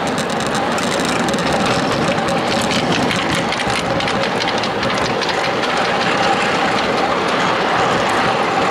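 Miniature ride-on train rolling along ground-level track: a steady rumble of wheels on rail, with a run of quick clicks about two to four seconds in.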